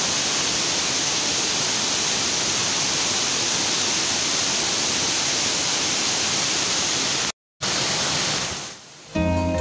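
Steady rushing hiss of falling water from a waterfall. It cuts out for a moment about seven seconds in, then fades out near the end as plucked guitar music begins.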